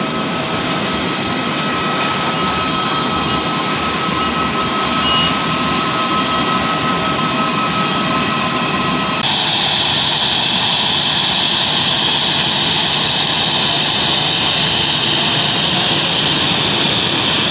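Jet airliner engines on the runway during landing, a steady rush of jet noise with faint whining tones. About nine seconds in it changes abruptly to a louder, hissier jet noise.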